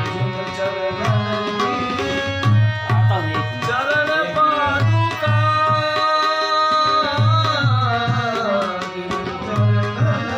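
Instrumental interlude of a Hindi devotional bhajan: a tabla beat keeps a steady rhythm under held accompanying notes and a melody line that slides up and down.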